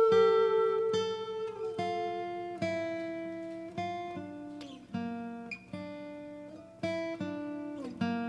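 Acoustic guitar playing a slow melody in single plucked notes and chords, about one a second, some with a slide into the note. A long held shakuhachi note fades out in the first two seconds.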